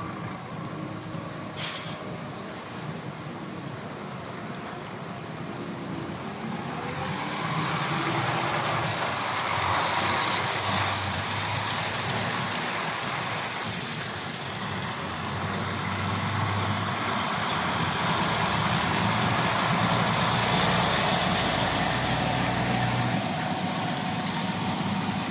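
Heavy goods lorries with curtainside trailers driving past one after another, diesel engines running low under a steady hiss of tyres on wet tarmac. The sound grows louder from about seven seconds in.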